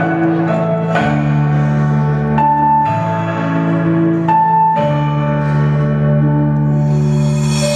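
Slow instrumental background music: sustained low chords that change about every two seconds under a simple held melody, growing brighter near the end.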